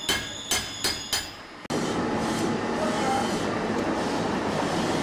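Hammer blows on a steel cutting die punching shapes out of a stack of fabric: four sharp metallic strikes with a ringing tail, about two a second. About 1.7 s in they cut off abruptly and a steady even noise takes over.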